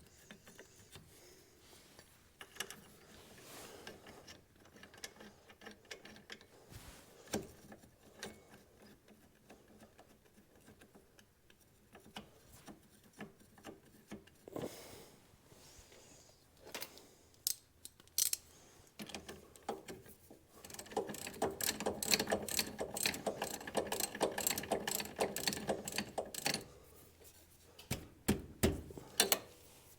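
Hand-tool work on a UTV's rear brake and hub: scattered metal clicks and clinks, then a long run of rapid ratchet wrench clicking for several seconds about two-thirds of the way through, a few more clicks near the end.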